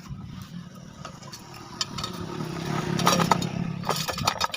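Steel wheel spokes clicking and clinking against the hub and rim as they are laced in by hand, over a steady engine hum that grows louder in the second half.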